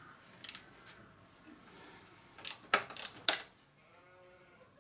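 Sharp metallic clicks from a ratchet wrench and socket working a bolt on a dirt bike's top triple clamp: one click, then a quick cluster of five or six about halfway through. A faint, drawn-out pitched sound follows near the end.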